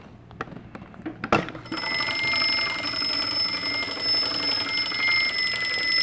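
A few knocks as the small door is handled, then, about two seconds in, a homemade anti-theft door alarm starts ringing: a 9-volt DC motor spinning against a steel bell cover, set off by the door being opened. The ringing is continuous and grows louder about five seconds in.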